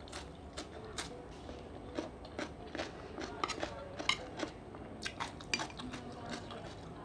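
Close-up eating sounds of seafood fried rice: chewing with many irregular small clicks and clinks of a spoon against a plate.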